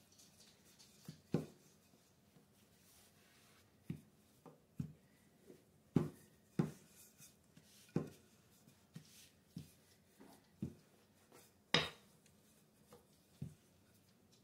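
Rolling pin working pie dough on a countertop: irregular short knocks and soft thuds, one or two a second, as the dough is rolled and turned.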